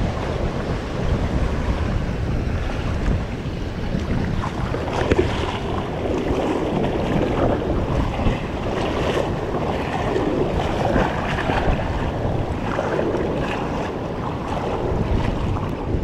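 Wind rumbling on the microphone over a steady wash of surf and moving water.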